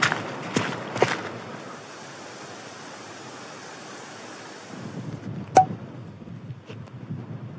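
Wind blowing steadily with a hissing rush, broken by a few sharp taps in the first second. A little before five seconds in, the sound changes to lower, gusting wind on the microphone, with one loud sharp click shortly after.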